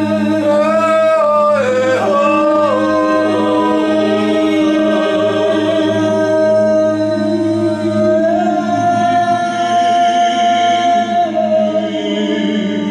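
Improvised, wordless a cappella singing by three voices over a steady low drone. The upper voices glide and waver, and one holds a long steady note from about eight seconds in.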